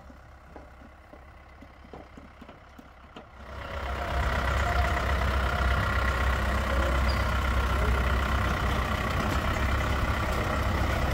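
Pickup truck's engine running as it drives past towing an old cannon on a spoked-wheel carriage, its tyres rolling on paving. Faint at first, then a loud steady rumble from about three and a half seconds in.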